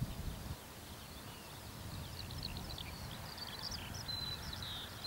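The Avro Anson's two Armstrong Siddeley Cheetah radial engines running at low power as the aircraft taxis in the distance, a low uneven rumble. Small birds chirp and twitter over it from about two seconds in.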